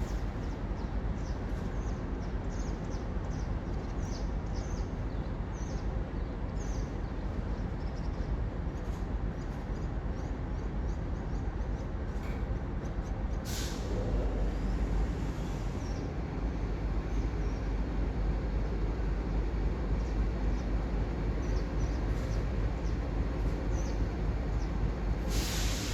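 Low steady rumble of a diesel freight train approaching, getting louder from about halfway through, with two short hisses, one near the middle and one near the end.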